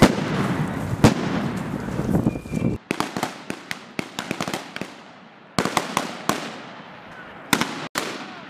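Rifle fire in the woods: single shots cracking at irregular intervals, each with an echoing tail, a few coming in quick succession. For the first three seconds a dense rushing noise lies under the shots, then cuts off suddenly.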